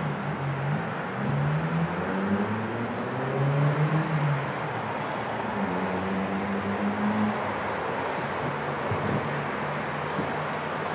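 Distant city traffic, with one motor vehicle's engine rising in pitch several times as it accelerates, then running steadily.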